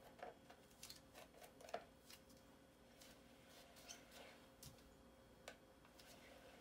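Near silence with scattered faint clicks and light taps from a plastic ballet turnout disc swivelling under a bare foot on a wooden floor, over a faint steady hum.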